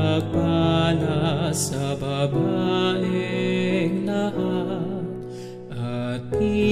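Background music: a slow, melodic piece with long held notes, dropping quieter about five seconds in before coming back up.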